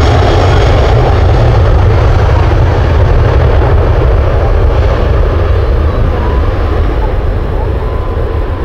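Loud jet engine noise from an airliner passing close, a dense rumble that slowly eases off over the last few seconds.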